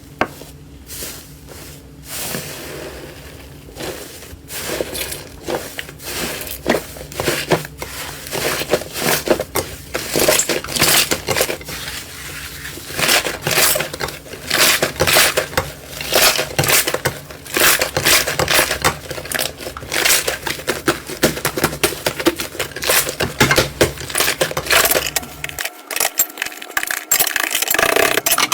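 Slime being squeezed and pressed by hand, giving a dense run of crackling, popping clicks that grows busier after the first few seconds.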